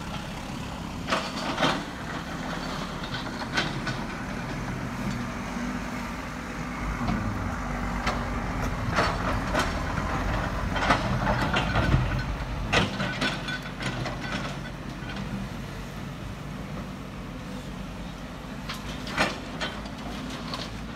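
Diesel engines of Sumitomo SH210 hydraulic excavators and dump trucks running steadily, with scattered sharp clanks and knocks as the excavators load laterite into the steel truck beds.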